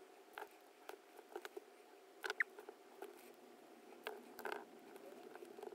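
Faint, irregular small taps and clicks as small paper rings and a glue applicator are handled on a craft mat, with one short squeak about two and a half seconds in.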